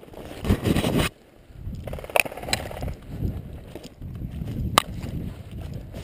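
Footsteps crunching through dry leaf litter, with brush and branches scraping past. There are a few sharp cracks, the loudest nearly five seconds in.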